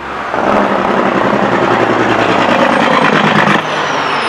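Large road vehicle's engine running loud and close with a steady low pulse, dropping off about three and a half seconds in, when a faint high whine starts to glide downward.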